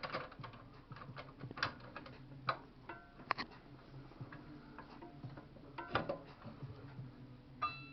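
Irregular clicks and ticks from a JET scroll saw's parts being worked by hand while a removed part is fitted back, with a couple of short squeaks, about three seconds in and near the end. The machine is not running.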